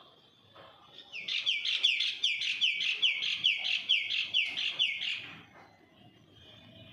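A bird singing a fast string of short, sharp, repeated notes, about four or five a second. The song starts about a second in and stops after about four seconds.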